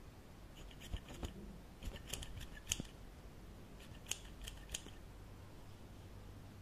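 Haircutting scissors snipping close to the microphone, in three short runs of quick snips.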